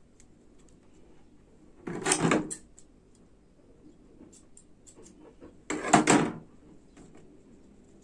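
Two short, loud scraping handling noises about four seconds apart as hands work the slingshot's elastic and fittings.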